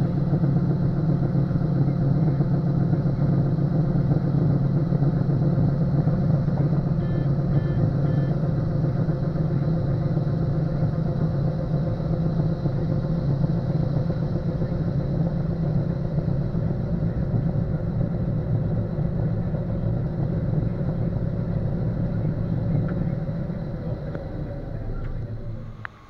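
John Deere 9400 combine's diesel engine running steadily under load while the unloading auger empties shelled corn from the grain tank into a wagon. The sound winds down over the last few seconds as the unloading finishes.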